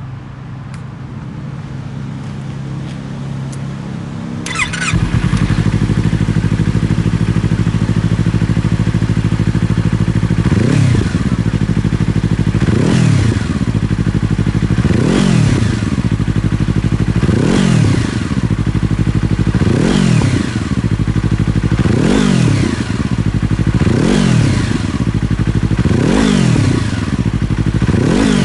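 A 2022 Yamaha YZF-R25's parallel-twin engine, breathing through a BEAMS CORSA EVO2 titanium slip-on silencer, starts up about four and a half seconds in and idles. From about ten seconds in it is revved in short blips, one about every two seconds, each rising and falling back to idle.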